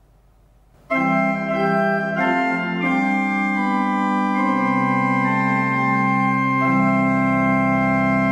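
Pipe organ playing slow sustained chords, starting about a second in, on a gap registration of Suavial 8' with Superoctave 2': the 4' rank is left out, leaving a gap in the harmonic build-up between the 8' foundation and the bright 2' top.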